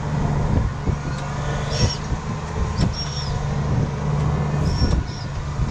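Ford TW tractor's diesel engine running steadily at the headland, a low even drone, with a few light clicks and short high squeaks now and then.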